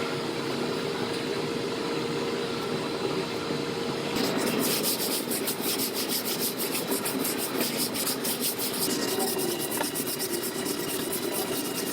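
Hand strokes scraping and rubbing over body filler on a pickup bedside panel: steady rubbing at first, then quick regular strokes, several a second, from about four seconds in.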